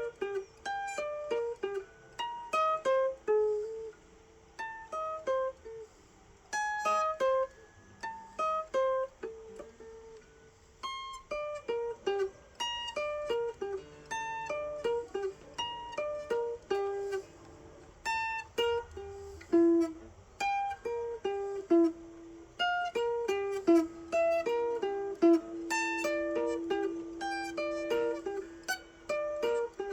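Guitar played solo: single plucked notes picked out in quick melodic runs, with short pauses between phrases and some notes left ringing.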